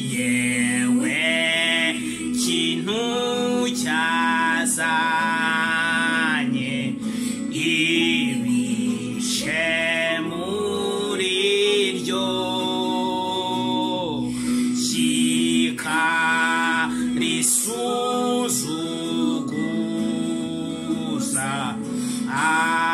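A man singing a gospel hymn in long, held phrases with brief breaths between them.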